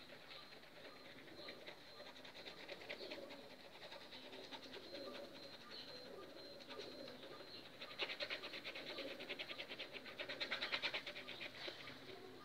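Paintbrush dabbing and scrubbing thick, clumped paint onto a canvas board in quick strokes: a fast, fine scratchy ticking, heaviest around two thirds of the way through and again shortly before the end.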